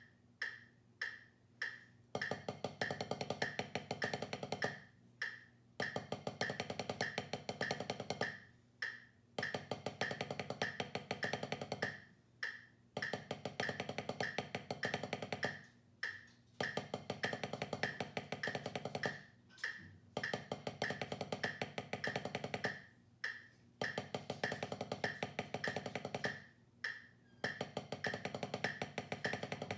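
Wooden drumsticks playing rapid, even triplet strokes on a drum practice pad, in phrases of about three seconds broken by short pauses. A metronome clicks steadily at 100 beats per minute underneath.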